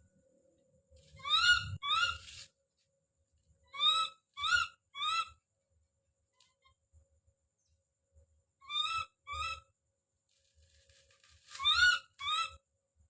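Baby monkey calling out with short, high, rising screams. They come in quick pairs and triplets, about ten in all, with a few seconds' pause between groups.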